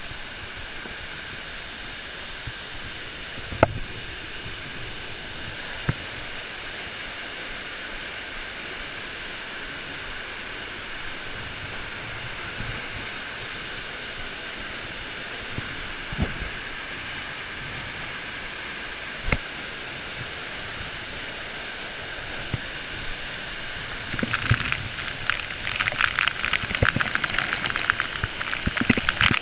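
Waterfall and stream water rushing steadily, with a few single sharp knocks from the camera being handled against rock. Near the end a louder, crackling spatter of falling water and spray close by takes over.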